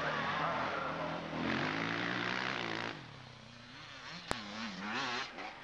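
Motocross motorcycle engines revving up and down as bikes run down the track, loud for about three seconds. Then fainter engine sound rises and falls, with one sharp click about four seconds in.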